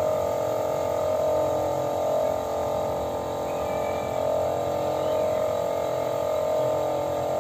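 A steady mechanical hum with a high, even whine that holds one pitch and does not rise or fall.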